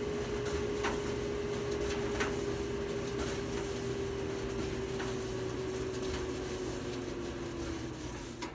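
Kenmore clothes dryer running with a steady hum, working again after its blown fuse was replaced. A few light ticks sound over it, and near the end the hum sinks slightly in pitch and fades out.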